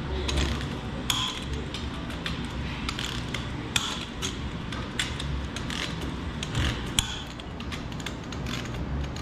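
Ratchet wrench clicking in short irregular runs as bolts on a driveshaft U-joint yoke are tightened to 45 foot-pounds, with metal parts clinking against the bench.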